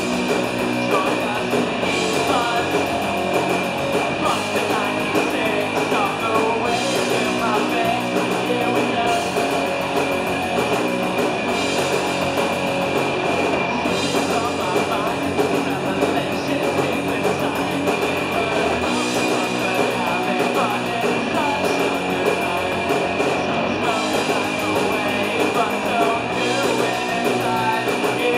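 Live punk rock band playing loudly: distorted electric guitars and a drum kit, with singing.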